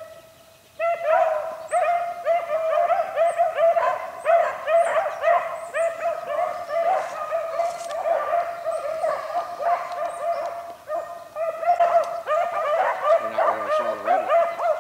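A pack of beagles baying in quick, overlapping calls as they run a rabbit's scent trail. The calls start about a second in and keep going without a break.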